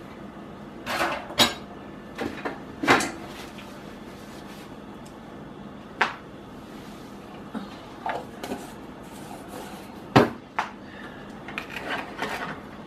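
Kitchen handling noises: scattered sharp clicks and knocks and brief rustles, the loudest knock about ten seconds in. Near the end a plastic spoon scrapes and pushes through the soft fats in a saucepan.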